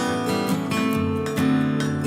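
Background music: an acoustic guitar track with steady plucked and strummed notes.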